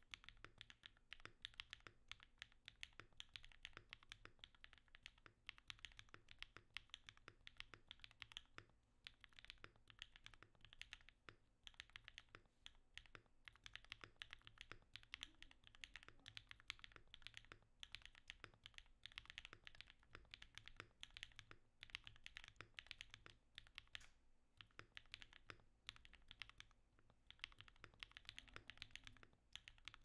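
Continuous fast typing on a Mode Eighty mechanical keyboard: a dense, quiet stream of key clacks with brief pauses. The keyboard has lubed and filmed Durock POM switches with PE switch pads under EPBT PBT keycaps, on an FR4 plate in a stack mount.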